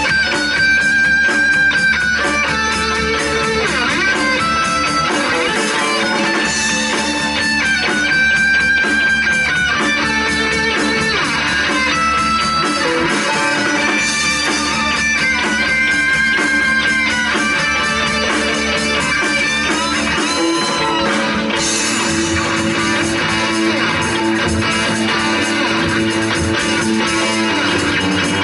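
A live instrumental rock trio of electric guitar, bass guitar and drums playing. The electric guitar plays long held notes, some of them bent in pitch, over a steady drum beat.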